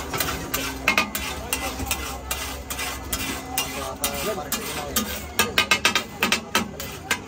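Pav bhaji being mashed and stirred on a large flat tawa griddle: a steel hand masher and a spatula knock and scrape against the hot metal in quick, irregular strokes over a steady sizzle. A rapid run of louder knocks comes near the end.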